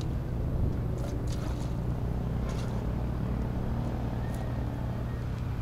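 A steady low engine rumble, with a few faint short hisses over it.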